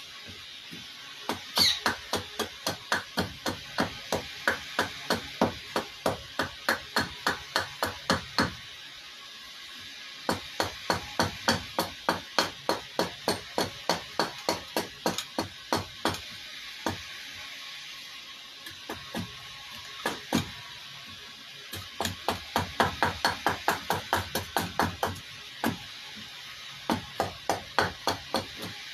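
Hatchet chopping into a wooden cup blank on a chopping stump, roughing out a kuksa: fast, steady blows of about three a second in runs of several seconds, broken by short pauses.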